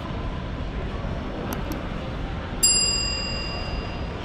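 A single bright metallic ding about two and a half seconds in, ringing on in several high tones and fading over about a second and a half, over the steady background noise of a large hall. Two faint clicks come shortly before it.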